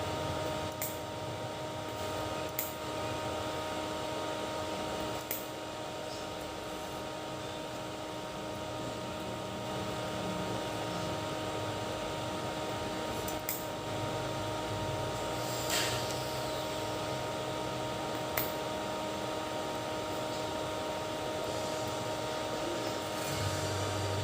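Electric cooling fan running steadily, an even hum with a few steady whining tones, and a handful of light clicks scattered through it.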